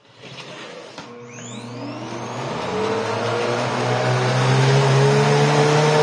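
National (Panasonic) Powerful & Compact canister vacuum cleaner switched on: a click about a second in, then the motor spins up with a rising whine, growing louder until it runs steadily at full speed from about four seconds in.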